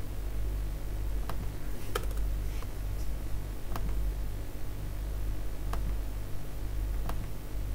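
A few sparse, separate clicks from a computer keyboard and mouse, over a steady low electrical hum.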